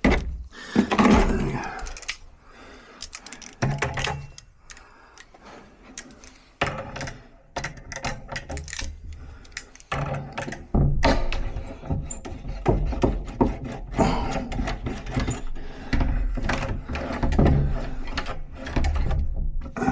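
Irregular clicks, knocks and thuds of hand tools and metal lock parts being handled on a door while a tubular door latch is worked on, growing busier about halfway through.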